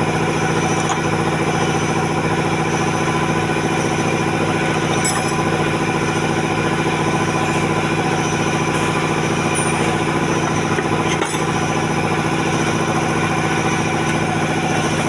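A motor or engine running steadily with an even hum that does not change in pitch. A few faint clicks are heard about five and eleven seconds in.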